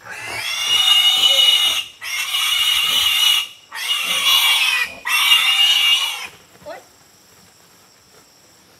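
Domestic pig squealing loudly: four long, shrill squeals of one to two seconds each, with short breaths between, then stopping about six seconds in.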